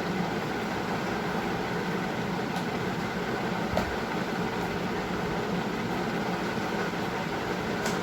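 Steady mechanical background hum, like an air conditioner or fan, with a few light clicks from handling and opening a small product box.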